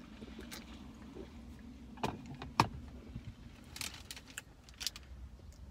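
A drink can and snack packaging handled in a car cabin, over a steady low hum: two sharp clicks about two seconds in, then a run of small crinkles and taps around four to five seconds.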